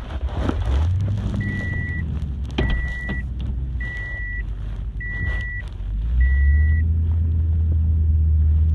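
A vehicle engine running with a steady low rumble, while an electronic beep sounds five times, evenly, a little over a second apart. The engine note swells and stays louder about six seconds in.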